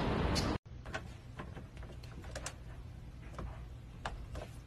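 Steady outdoor street noise that cuts off abruptly about half a second in. A quiet stretch follows with a few faint, irregular light clicks, spaced roughly half a second to a second apart.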